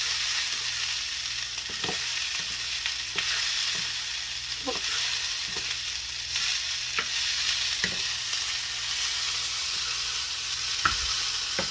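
Food frying in hot oil with a steady sizzle, stirred in the pan with a utensil that clicks against it now and then. Some of the food is still partly frozen.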